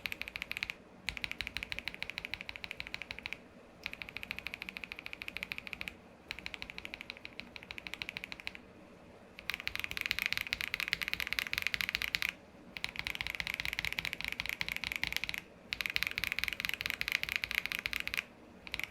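Linear mechanical keyboard switches being typed on rapidly in bursts of a few seconds with short pauses: KTT Peach and Akko Radiant Red switches, one after the other. The second set, from about halfway in, is louder and brighter than the first.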